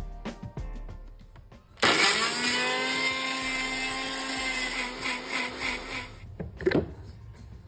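Electric mixer grinder blending chunks of muskmelon with ice cubes and condensed milk. The motor starts suddenly about two seconds in, runs with a steady whine for about four seconds, stops, and then gives one short pulse.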